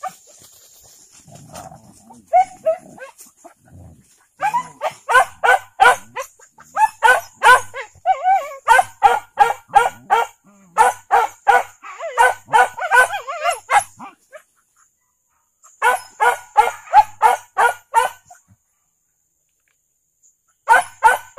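Leashed hunting dogs barking in rapid runs of short, high yelps, about four or five a second. The barking comes in three spells: a long one of about ten seconds, a shorter one, and a brief one near the end.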